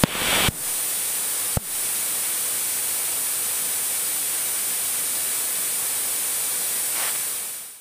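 Steady, even hiss in the cockpit audio of a taxiing Diamond DA42, with two short clicks in the first two seconds; it fades out at the very end.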